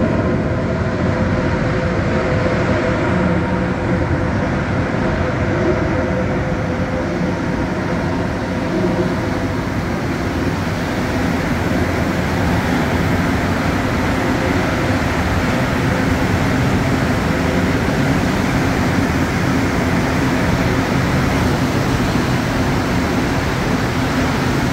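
MR-73 rubber-tyred metro train moving through the station: a steady rumble with a faint whine that fades away over the first ten seconds or so.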